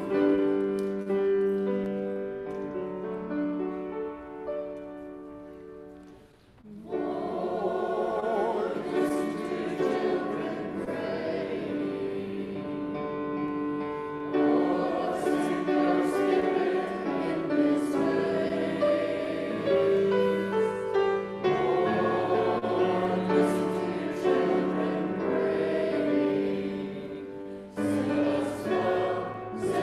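Small mixed church choir singing a hymn. Soft held chords fade away over the first few seconds, then the full singing comes in about seven seconds in, with a short break near the end.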